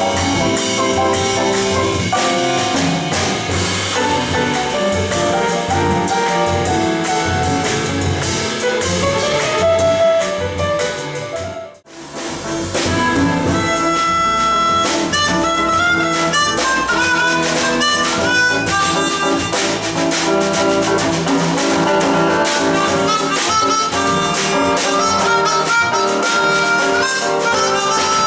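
Live small-group jazz: grand piano, upright bass and drum kit playing together. After a brief break about halfway through, an amplified harmonica, played into a hand-held microphone, leads with held, bending notes over the bass and drums.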